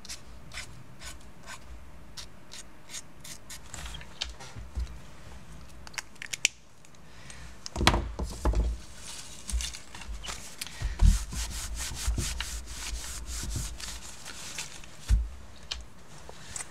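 Black paint pen scratching short strokes over dried paint on paper, several strokes a second. After about eight seconds comes louder rubbing and brushing of a hand across the paper, with a few thumps of handling.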